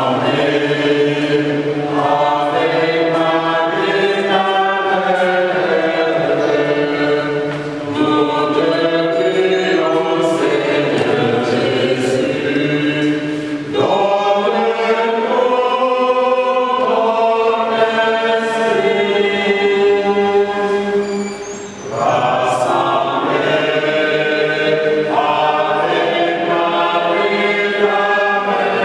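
Church choir singing a hymn together, in long phrases with brief pauses between them.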